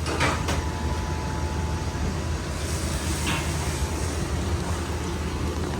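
Randell one-door upright freezer running with its loud noise: a steady low hum with a thin, even whine that joins in just after the start. The technician suspects a bad motor.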